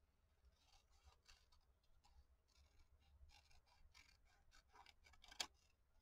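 Scissors snipping through paper: a faint, irregular run of short cuts, with one sharper, louder snip about five seconds in.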